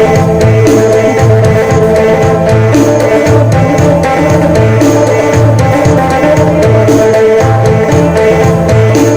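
Isan phin, the plucked northeast Thai lute, playing upbeat phin sing music over a steady drum beat.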